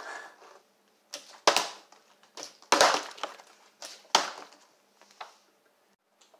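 Partly filled plastic water bottle flipped and dropping onto a wooden floor: a series of knocks and clatters as it lands and tips over, the loudest about a second and a half and three seconds in.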